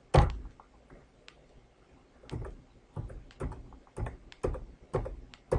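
One thump, then a string of light clicks and knocks, about two a second, starting about two seconds in.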